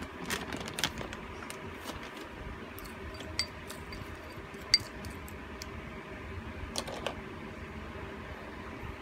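Plastic spoon stirring dry hamster seed mix in a small ceramic bowl: scattered light clicks and rattles of seeds and spoon against the bowl, the sharpest about halfway through, over a steady background hum.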